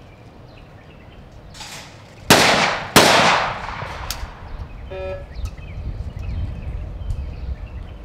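A skeet shooter's break-action shotgun fires two shots about a second apart at a double, each with a fading echo. About a second later there is a small click as the gun is broken open.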